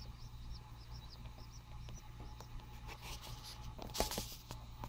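Newly hatched chicken chicks peeping softly, a quick run of short, high cheeps in the first half. About four seconds in come a few rustles and a sharper knock.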